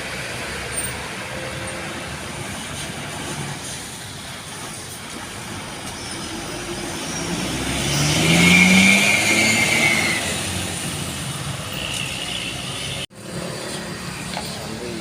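A large bus passing close by, its engine note rising as it accelerates past, loudest about eight to nine seconds in, over steady road traffic. The sound drops out abruptly for an instant about thirteen seconds in.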